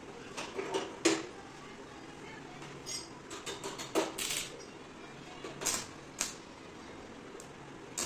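Short metallic clinks and clanks of steel bar stock and a latch plate being set down and positioned on a steel worktable, a few scattered knocks with the sharpest about a second in and around four seconds in.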